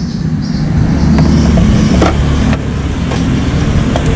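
Motor traffic passing close by, a loud low rumble of vehicles on the road, with a few short light knocks.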